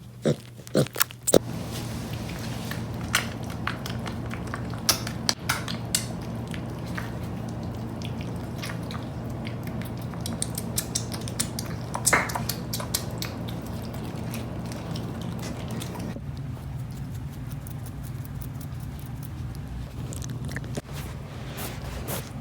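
Miniature pig making scattered short clicking noises over a steady low hum that begins about a second and a half in.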